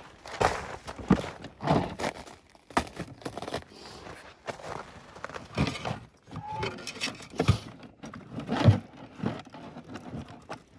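Footsteps crunching in snow, an uneven step about once a second.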